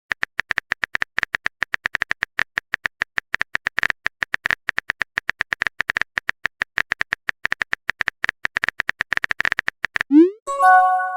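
Phone-keyboard typing sound effect: rapid clicks, several a second, each with the same short beep. Near the end come a quick rising swoop and a multi-note chime, like a message-sent or message-received alert.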